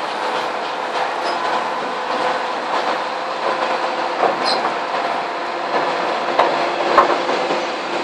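Sawmill breaking-down saw, a large circular saw, running steadily and cutting through a log on its rattling steel carriage. A couple of sharp knocks come near the end.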